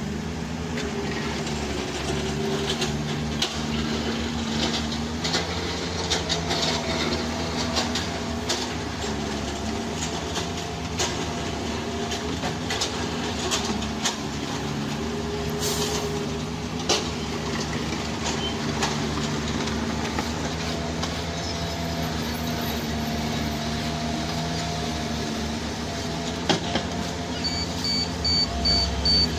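Heavy diesel machinery running steadily, its engine note drifting up and down, with scattered metallic clanks and knocks. A backup alarm starts beeping near the end.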